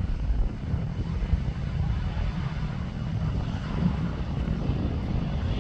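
Airbus A319 airliner's jet engines running as it rolls along the runway: a deep, steady rumble under a broad hiss that swells a little toward the end.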